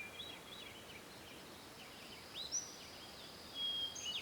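Faint birdsong: scattered short chirps and whistled notes, with a rising chirp about halfway through and a longer held whistle near the end.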